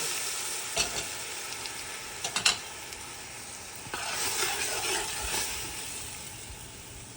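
Garlic, onion and curry seasoning frying in oil in a pot: a sizzle that fades, with a few sharp clacks of a utensil against the pot about one and two and a half seconds in, and a burst of stirring around four to five seconds in.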